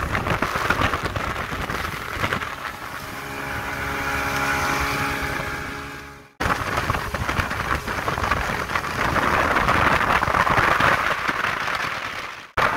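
Mercury 200 outboard motor running at speed, with wind rushing over the microphone and water rushing past the hull. The engine's tone stands out in the middle, and the sound breaks off abruptly twice, about six seconds in and near the end.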